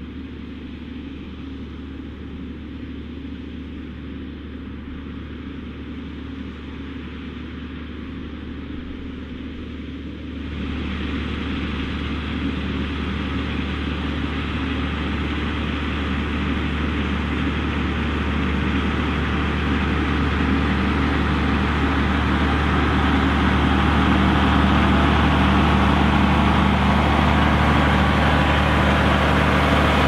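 Diesel engines of two John Deere tractors, a 9560R and a 6215R, running steadily under load while pulling reversible ploughs. The drone jumps in loudness about ten seconds in and keeps growing louder as the 9560R draws close.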